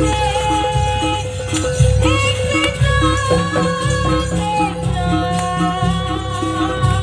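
Live Javanese jaranan ensemble music: a held, bending melody line over a steady drone, a regular pulse about twice a second, and dense drumming underneath.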